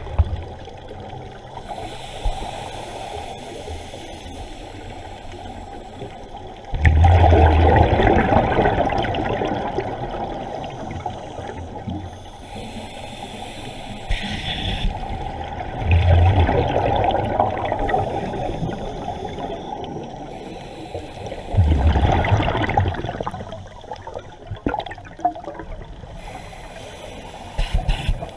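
Scuba divers' regulator exhalations underwater: three long bubbling gushes, about six to nine seconds apart, over a steady watery hiss.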